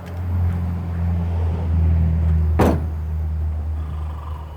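A steady low engine-like hum that swells at the start and holds, with one sharp knock about two and a half seconds in.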